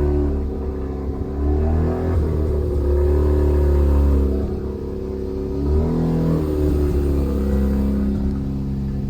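Mazda RX-7 FD's twin-rotor rotary engine running and revving, its pitch rising and falling a few times.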